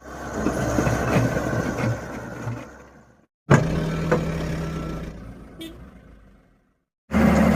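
Heavy machinery engines running in two short clips. Each fades down and is cut off abruptly, with a steady engine hum in the second.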